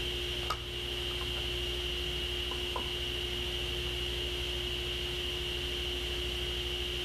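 Table saw running without cutting: a steady motor hum with a high whine. There is a light knock about half a second in and a couple of small ticks near three seconds as the workpiece is handled in the sled.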